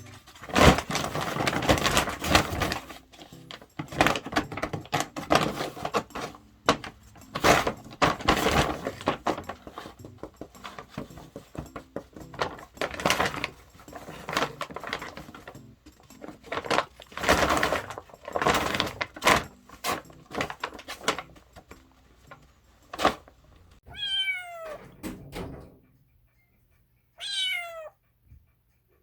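A paper bag crinkling and rustling in irregular bursts as a cat plays in and around it. Near the end the rustling stops and a cat meows twice, each call falling in pitch.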